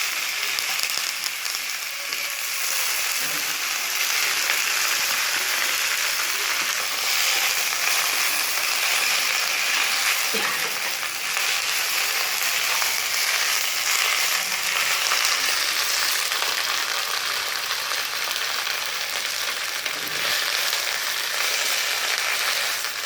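Handful of curry leaves frying in hot oil in a pan, a steady loud sizzle as they are lightly sautéed.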